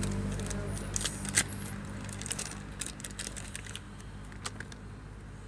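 Small plastic items and wrapping handled in the hands: a run of light clicks and rattles, the sharpest about a second and a half in, thinning out after about four seconds. Under it, a steady low hum slowly fades.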